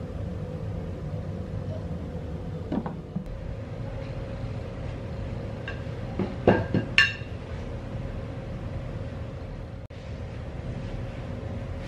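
Steady low background hum, with a quick run of three or four clinks of kitchenware, hard and a little ringing, about six and a half seconds in.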